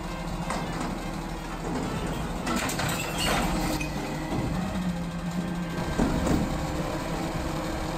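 Front-loading garbage truck running steadily while its lift arms raise a bin over the cab and tip it into the hopper. About two and a half seconds in there is a rattling clatter as the load falls from the bin, and a sharp knock about six seconds in as the bin swings back down.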